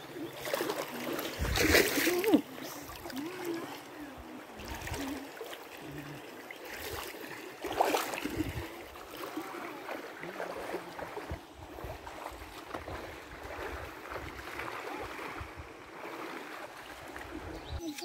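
Shallow river running and rippling over stones, with irregular splashing of feet wading through the water, loudest about two seconds in and again about eight seconds in.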